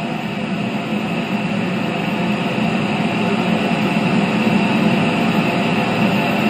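Pink noise played through a large outdoor PA rig of line-array speakers and subwoofer boxes, a steady even hiss-like rush that grows slightly louder. It is the test signal used to measure the system's frequency response and delay with an RTA.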